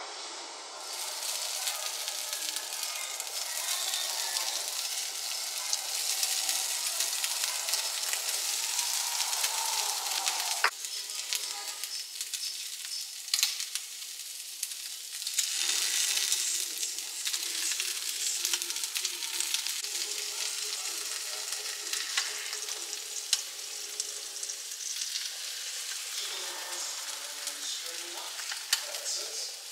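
Diced bacon and tomato sizzling in the hot cups of an electric pie maker: a steady hiss with scattered small clicks and taps as more food and utensils go in.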